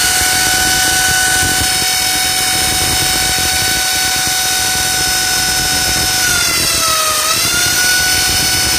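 Corded electric drill running at steady high speed, boring into floor tile. Its whine dips in pitch about seven seconds in as the bit bites harder, then picks back up.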